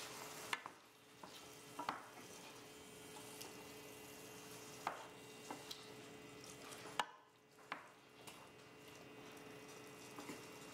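Wooden spoon stirring chickpeas and olives through tomato sauce in a stainless steel sauté pan, with a faint sizzle of the simmering sauce. The spoon knocks lightly against the pan now and then.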